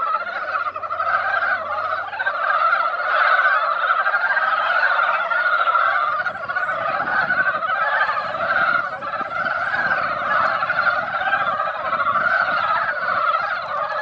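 A dense breeding chorus of many Korean brown frogs calling at once in a spawning pond, a steady, unbroken chatter of overlapping calls.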